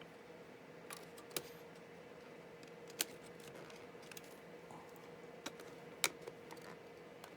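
Scattered light clicks and taps from hands handling the opened laptop's plastic and metal internal parts, the sharpest about three and six seconds in, over a faint steady hum.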